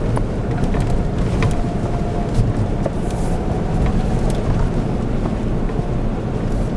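Toyota Hilux pickup heard from inside the cab, climbing a rough gravel track: a steady low engine and tyre drone with scattered clicks and rattles.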